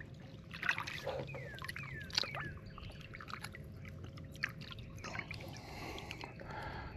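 Lake water lapping, trickling and sloshing as a bass is held and moved in the water beside a boat's hull for release. A few short falling whistles come between about one and two and a half seconds in.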